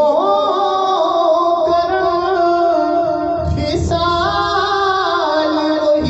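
A man singing an Urdu naat, a devotional song in praise of the Prophet, into a handheld microphone. He holds long notes with ornamented turns between them, with a short break about three and a half seconds in.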